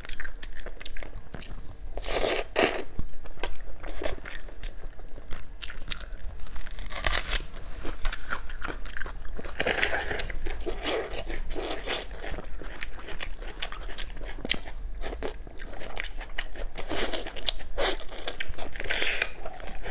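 Close-miked eating: wet biting and chewing of braised lamb shank meat, with clusters of crunchy bites every few seconds, the crunch likely from a raw red onion being bitten.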